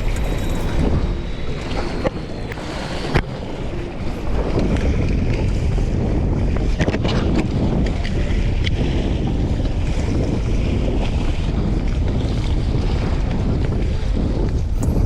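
Wind buffeting the microphone over the wash of sea waves, with a sharp click about three seconds in.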